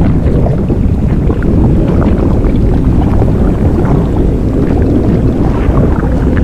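Blueberry inflation sound effect: a loud, continuous low rumbling and sloshing, with short, sharper sounds scattered through it.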